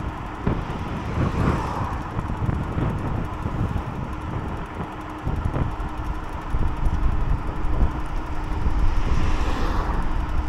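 Wind buffeting the microphone while riding a Teverun Blade GT II electric scooter at a steady speed, over a steady motor hum. Two rushing swells rise and fade, one about a second and a half in and one near the end.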